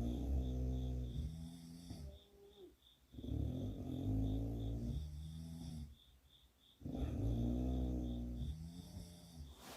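A girl snoring in three long, pitched snores, each about two to three seconds long, coming roughly every three and a half seconds with quiet breaths between.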